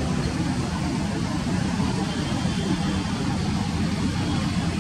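Airbus A320 jet engines heard from a distance as a steady low rumble while the airliner rolls out along the runway after landing.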